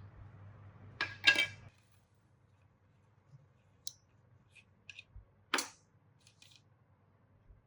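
Metal parts of an old electric hand planer being handled and set down on a hard surface: a loud double clink about a second in, then lighter ticks and another sharp clink past the middle. A low background hum cuts off just after the first clinks.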